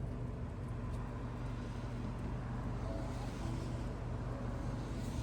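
Steady low engine hum, like a vehicle's motor running, with an even background noise.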